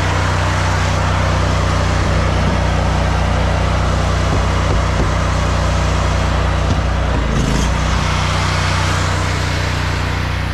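Pressure washer's engine running steadily at a constant speed, under a loud, even rushing hiss.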